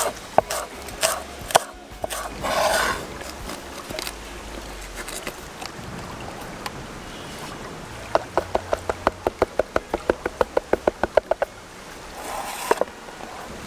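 Chef's knife chopping vegetables on a wooden cutting board: a few separate chops at first, then from about eight seconds in a fast, even run of about six chops a second lasting three to four seconds. Two brief rustling rushes, one about three seconds in and one near the end.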